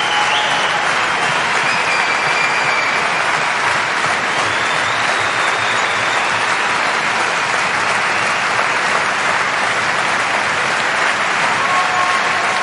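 A large audience applauding at the end of a show: dense, continuous clapping that holds steady throughout.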